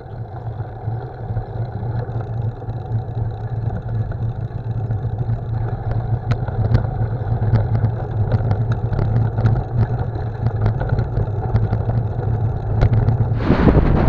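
Road bike riding along a rough, patched asphalt road, heard through a handlebar-mounted camera: a steady rumble of tyre and frame vibration with many light rattling clicks, growing slowly louder, and a louder rush of air near the end.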